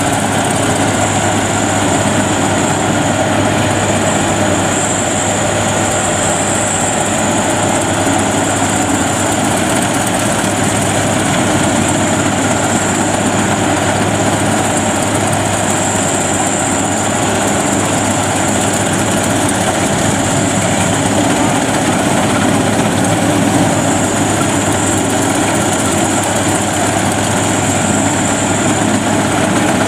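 WD102PRO rice combine harvester running steadily while cutting and threshing rice, its engine and machinery making a loud, constant sound with no change in pace.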